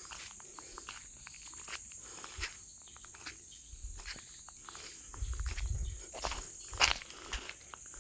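Steady high-pitched drone of insects, with footsteps and rustling through vegetation; a low rumble about five seconds in and one sharp snap near seven seconds.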